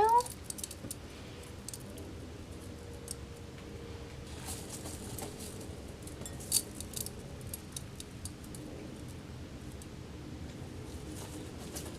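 Faint scattered clicks and taps of small objects being handled, a couple of them sharper about four and six seconds in.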